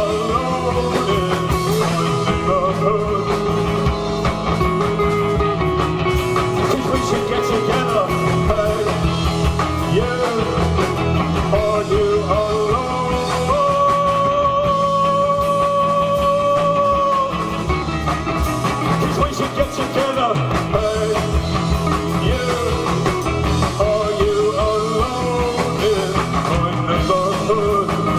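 Rock band playing live, a stretch of the song without lyrics. About halfway through, one long note is held for about four seconds.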